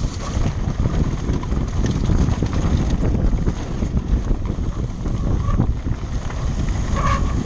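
Wind buffeting the microphone: a loud, steady, fluttering low rumble, with a brief higher tone about seven seconds in.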